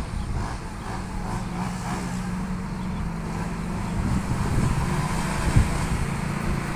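Diesel intercity coach approaching at low speed, its engine running with a steady low drone that grows louder as it nears.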